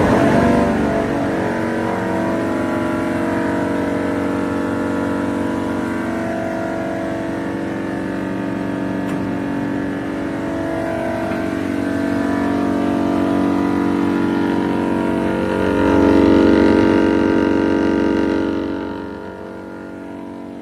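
Klockner 80x300K 2WT wood shredder running under load while it chews wood waste: its 18.5 kW electric motor and rotor give a steady hum of several tones with grinding noise over it. The sound swells louder about 16 seconds in, then drops off near the end as the load eases.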